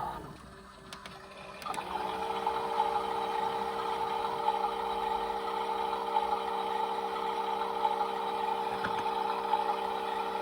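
Small electric motors of toy washing machines running. The sound dips at the start, then about two seconds in a drum motor spins up and settles into a steady whine.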